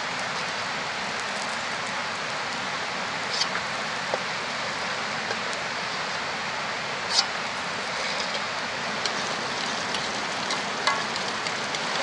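Peanuts frying in oil in a steel wok over a wood fire: a steady sizzling hiss, with a few sharp clicks of a metal spatula against the wok.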